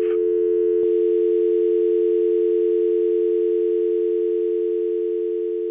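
Telephone dial tone: a steady two-tone hum, unbroken, left on the line after the recorded message ends.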